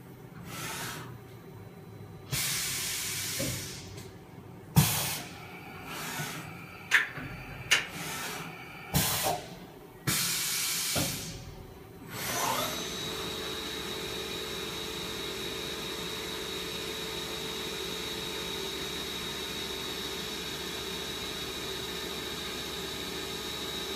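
Sharp SV-2414S-IF vertical machining centre running a demo program: several hissing air blasts and metallic clunks from the machine's mechanism. About halfway through, its belt-driven CAT 40 spindle starts and runs on with a steady high whine.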